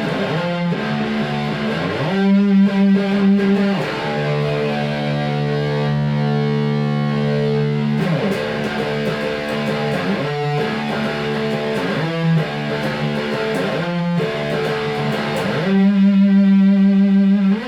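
Electric guitar played through a Diezel VH4-2 distortion pedal: heavily distorted chords, each held for a few seconds before changing, with a short choppy, rapidly picked stretch about two seconds in.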